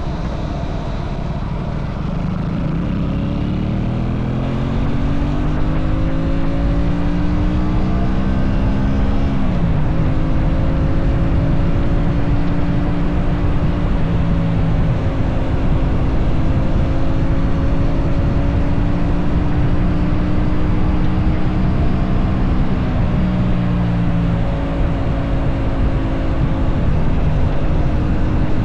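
Aprilia RS 457's parallel-twin engine under way. Its pitch climbs steadily as it pulls through a gear, drops sharply at a shift about nine seconds in, then holds a steady cruise and eases off briefly about twenty-three seconds in. A steady low rush of wind runs beneath it.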